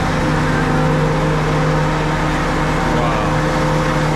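Heavy truck engine running at a steady, loud idle with a constant hum.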